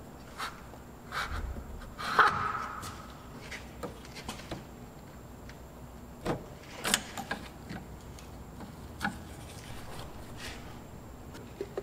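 Scattered small clicks, knocks and rubbing from hands and a hand tool working at a car's steering rack and rack boot, with one louder clank about two seconds in.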